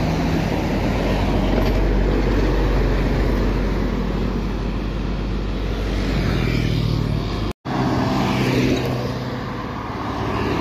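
Intercity coach bus's diesel engine going past close by, then the steady rush of road traffic as cars, buses and motorbikes pass; the sound drops out for a moment about three-quarters of the way through.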